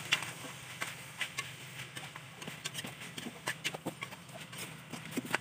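Chicken feet being stirred in a metal pan, giving irregular clacks and knocks of the feet and utensil against the metal, over a steady low hum.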